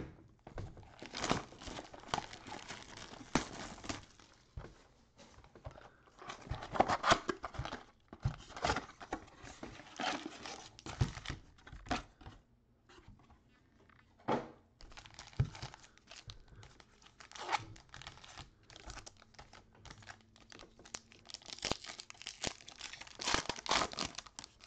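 Plastic wrapping and foil trading card packs crinkling and tearing in irregular bursts as a cardboard card box is unwrapped and opened and a pack is torn open by hand.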